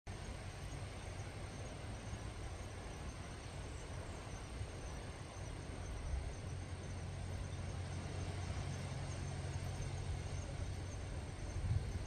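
Steady seaside outdoor ambience: an even hiss with a low steady rumble underneath and a faint, constant high insect trill, growing a little louder about halfway through.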